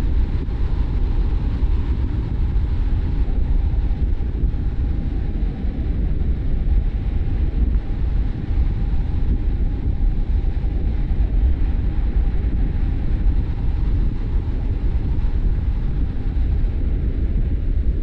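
A car driving along at a steady pace: a continuous low rumble of road and tyre noise mixed with the engine, with a faint steady hum above it.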